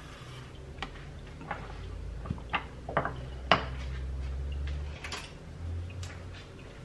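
Light clicks and taps of a metal spoon and a glass jar being handled on a kitchen counter, with the spoon knocking against a plastic yogurt tub. There are about half a dozen separate taps, the sharpest about three and a half seconds in, over a low hum.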